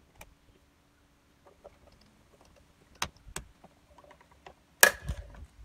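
Scattered clicks and knocks of a plastic mirror cap being pressed and worked onto a Holden VE Commodore's wing mirror housing, with a few sharp knocks and the loudest near the end.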